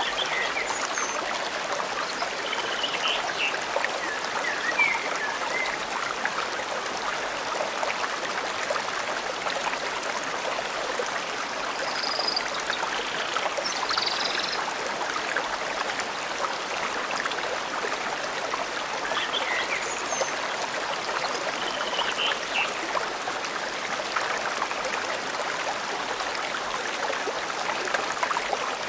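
Stream water flowing steadily, with short high bird chirps breaking in every few seconds.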